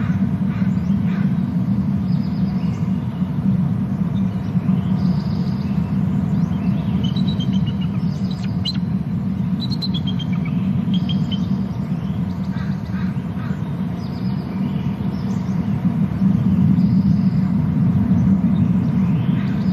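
Steady low outdoor rumble with small birds chirping over it: short high chirps every second or two, and a run of quick falling notes about halfway through.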